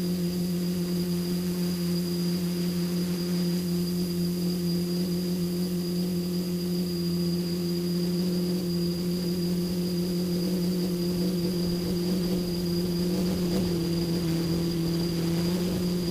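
A tricopter's three motors and propellers running steadily in flight, heard from the camera on the craft: a constant low hum with a thin high whine above it, its pitch wavering briefly late on.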